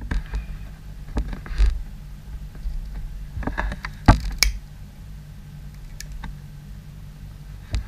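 Fingers handling a fishing hook, line and a cigarette lighter close to the microphone: scattered small clicks and taps, the sharpest about four seconds in, over a steady low hum.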